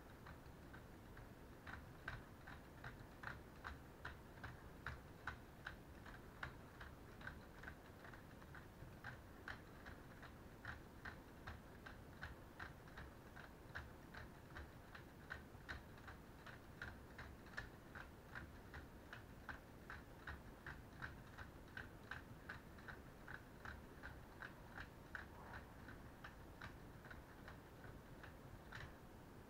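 Plastic LEGO Technic gears clicking steadily, about three clicks a second, as a hand-turned knob works the mechanism that lifts the model F1 car's bodywork.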